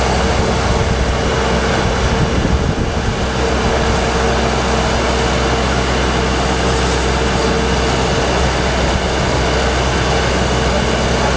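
An engine-driven machine running steadily with a constant hum, at work on a street water-leak repair.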